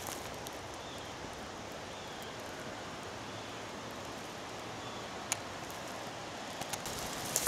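Steady outdoor ambience: an even rushing hiss, with a few faint short high chirps and one sharp click about five seconds in.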